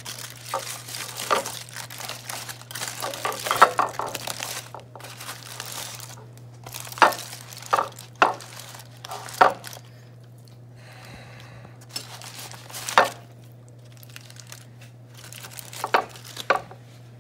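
Aluminium foil crinkling and crackling in irregular bursts as it is pulled open from around foil-wrapped smoked turkey legs, with a few sharp crackles standing out. A steady low hum sits underneath.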